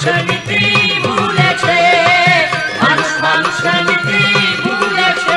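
Instrumental passage of a Bengali folk song (bichched gaan): a melody line that is held and slides in pitch, over a steady drum rhythm.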